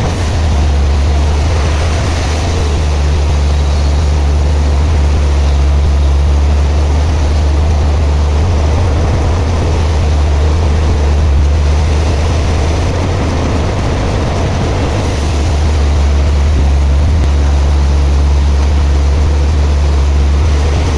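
Heavy machinery running steadily: a loud, deep, unchanging hum with a noisy hiss over it, cutting off abruptly at the end.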